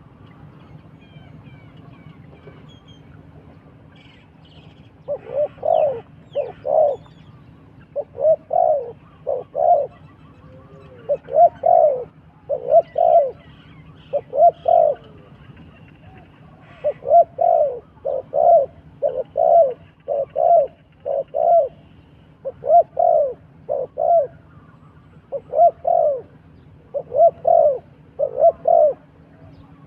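Dove cooing: short, low coo notes in groups of two or three, repeating about every second and a half, starting about five seconds in. Faint higher chirps of other birds sound in the background.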